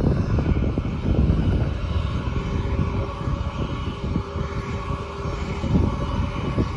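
Jet engines of an Airbus A320 airliner running at low taxi power as it rolls past, a steady whine over a low, gusty rumble.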